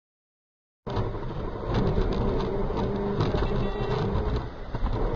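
Silence for just under a second, then the running noise of a car heard inside its cabin through a dash camera: a low engine drone with scattered clicks and rattles.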